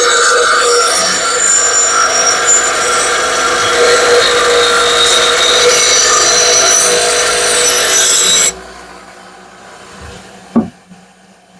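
Steel lawnmower blade being sharpened with a power grinder: a steady metal-on-abrasive grinding noise that stops abruptly about eight and a half seconds in, followed by a short knock near the end.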